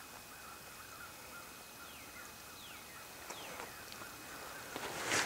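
Faint, distant hounds baying as they run a rabbit, with a few short falling cries in the middle, and a brief rustling noise near the end.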